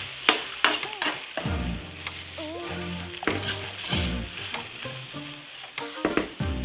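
Vegetables sizzling in a hot granite-coated wok as a metal spoon stirs and tosses them, with sharp clicks several times where the spoon strikes the pan.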